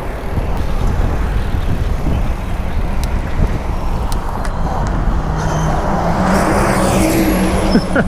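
Street traffic under a steady low rumble, with a motor vehicle passing close: its engine note steps up about five seconds in and its rush swells to a peak near the end.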